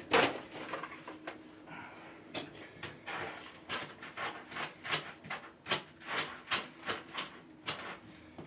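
A sharp knock, then a quick series of scraping strokes, about two a second.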